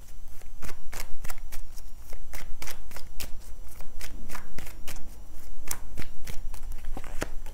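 Deck of tarot cards being shuffled by hand: a quick, even run of soft card slaps, several a second.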